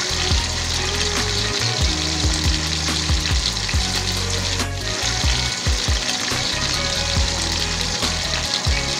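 Small spiny eels (gochi fish) frying in hot oil in a pan, giving a steady, dense sizzle. Background music with a steady beat plays underneath.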